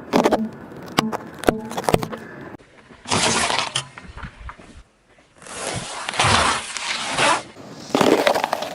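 Things cracking and breaking as they are crushed under a car's tyre. There are several sharp cracks in the first two seconds, then three longer bursts of crunching.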